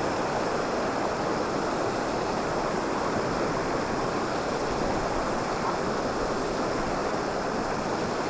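Shallow stony river running over riffles: a steady rush of water.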